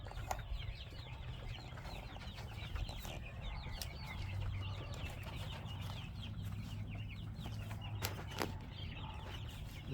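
Chickens clucking and chirping softly in many short calls, with a low steady hum underneath through the middle and two sharp clicks near the end.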